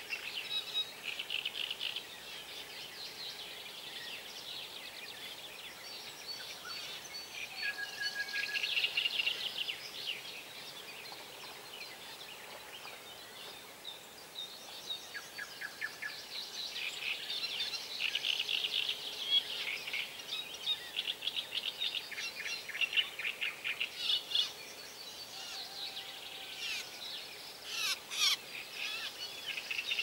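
Several birds singing at once, overlapping songs of rapid trills and chirps, with a short lull about halfway through.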